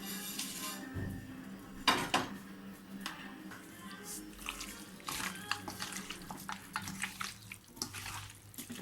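Wet, irregular splashing with sharp clicks and clinks, as of chicken pieces being mixed in a bowl.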